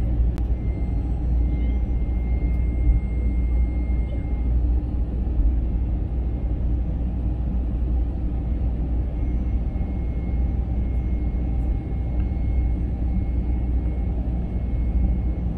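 Steady cabin noise of an Airbus A320 in flight on its descent, heard from a window seat beside its CFM56-5B engine: a loud, even, low rumble with a faint thin whine that comes and goes.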